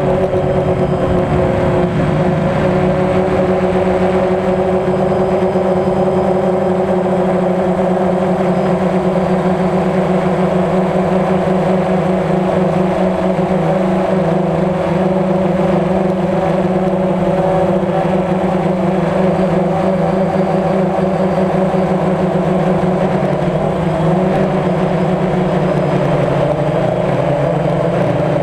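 DJI Phantom quadcopter's motors and propellers running steadily in flight, heard from its onboard camera: a loud, even buzz with several steady tones that shift slightly in pitch near the end.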